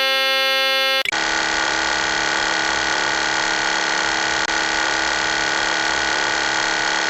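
Boeing 737 cockpit warnings: a steady warning horn for about a second, then a continuous mechanical buzzing rattle of the kind made by the stick shaker, the stall warning.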